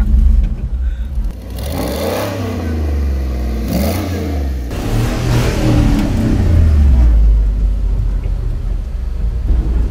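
Engine of a modified Jeep Wrangler YJ revving up and down as it drives through snow, with a rushing noise for a few seconds in the middle.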